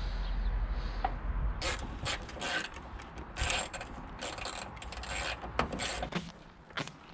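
Hand socket ratchet clicking in short, irregular runs as bolts are worked loose.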